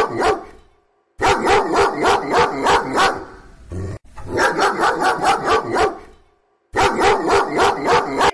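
A dog barking in quick runs of about three barks a second, several runs in a row with short pauses between them.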